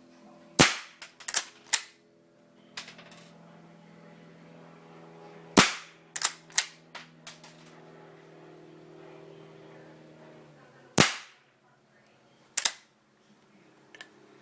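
Stevens Visible Loading slide-action .22 rimfire rifle firing three shots of subsonic ammunition about five seconds apart. Each report is followed by a quick run of mechanical clicks as the action is worked, ejecting the empty case and loading the next round.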